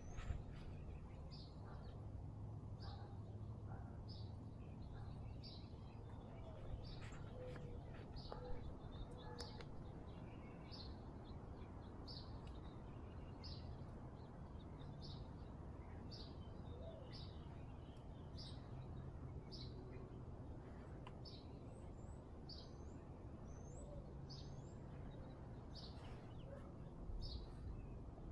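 A bird repeating a short, high chirp about once a second, over a faint steady low background hum.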